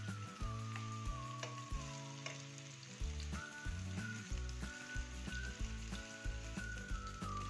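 Chicken meatballs sizzling as they shallow-fry in oil in a non-stick frying pan, with a few light clicks as a fork turns them over. Background music plays underneath.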